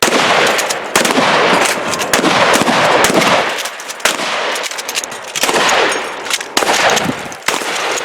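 Several guns firing at once in a sustained volley: rapid full-auto fire mixed with single shots. It starts abruptly and keeps up almost without pause, with brief lulls about four and seven and a half seconds in.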